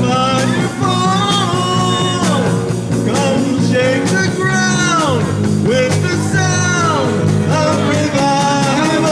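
Live amateur rock-style worship band playing through a small PA: drum kit, electric guitars and bass under voices singing into microphones.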